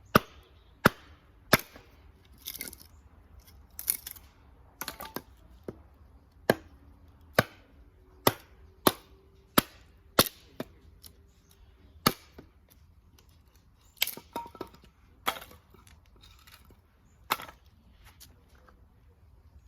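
Wood fire crackling: sharp, irregular pops about once a second.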